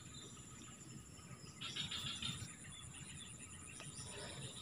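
Faint outdoor ambience: steady high-pitched insect trilling, with a brief slightly louder patch of sound about two seconds in.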